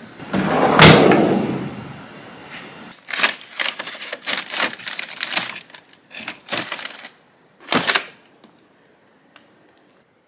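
A brief loud clatter about a second in, then a brown paper gusset bag crinkling and rustling in quick bursts as eggplants are handled inside a refrigerator vegetable drawer, with one last short rustle near the end.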